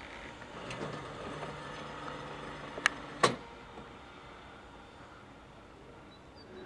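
Bayerische Zugspitzbahn electric railcar running away along the track, with a low steady hum and two sharp clacks close together about three seconds in, then its sound fades as it recedes.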